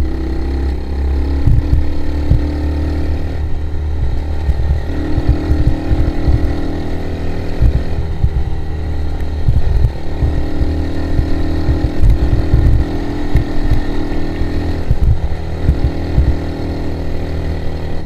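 ATV quad engine running under way, its pitch shifting several times as the throttle is opened and eased, with irregular low thumps throughout.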